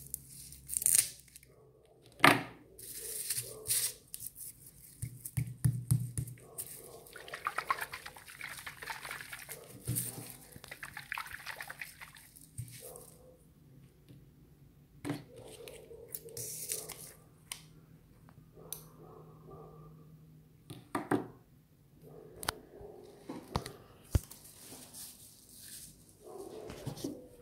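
A steel blade prying and tearing the fibrous husk of a coconut: stretches of scraping and ripping of fibres broken by sharp clicks and knocks.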